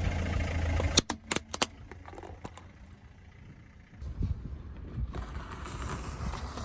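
A car running over objects: a quick run of sharp cracks about a second in, with low car engine and tyre noise before and after.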